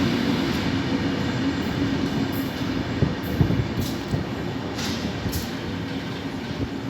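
Metrotren Rancagua commuter train running on the rails: a steady rumble of wheels with a low hum, several brief high-pitched hisses from the wheels, and the whole sound slowly fading.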